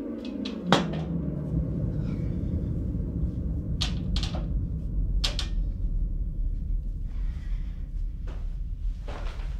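Low rumbling drone of a horror film's sound design. It begins as a falling tone that settles into a steady low rumble about a second in. Scattered knocks and thuds sit over it: a sharper one near the start, then fainter ones around the middle and near the end.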